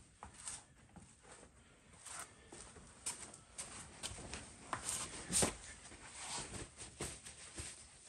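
Footsteps and light, irregular knocks and scuffs on a concrete garage floor, with one sharper knock about halfway through.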